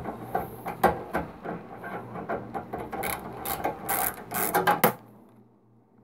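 Screwdriver and hands working a small screw and the high-voltage diode free of a microwave's metal chassis: clicking and metal-on-metal scraping, with a quick run of sharp clicks in the last couple of seconds before it stops about a second before the end.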